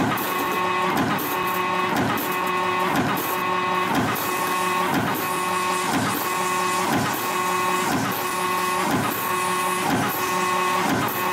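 YHM CF-330 CNC spring coiling machine forming 3.2 mm wire into compression springs at 60 a minute: a steady motor whine with a swishing mechanical cycle that repeats about once a second, one cycle per spring.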